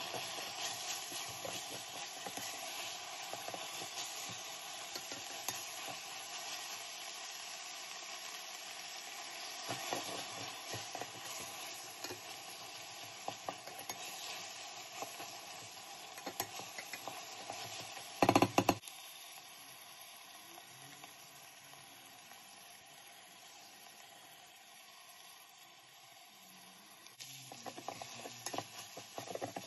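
Minced beef and onion sizzling in a stainless steel pot while a wooden spoon stirs and scrapes against the pot's bottom and sides. A single loud knock comes about two-thirds of the way through, after which the sizzling is quieter.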